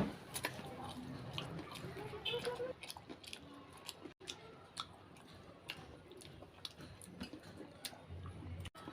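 A person chewing samosa: scattered, irregular crisp clicks and crackles of food in the mouth.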